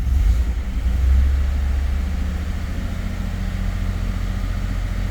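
2011 Ford F-150's 5.0 V8 engine running just after starting, louder for the first second and a half, then settling to an idle. It runs rough with a misfire; codes point to cylinder 5, and cylinder 6 may be misfiring too.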